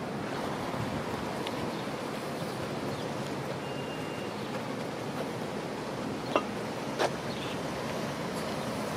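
Steady rushing outdoor noise of wind, with two sharp clicks about half a second apart a little past two-thirds of the way through.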